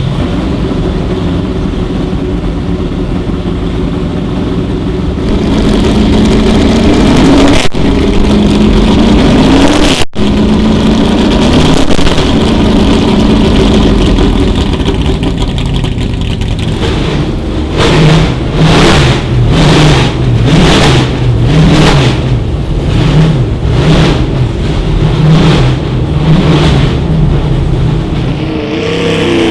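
Can-Am sports-racing car engine idling, then revved with rising and falling throttle blips. From about 17 seconds in, short regular blips come roughly once a second.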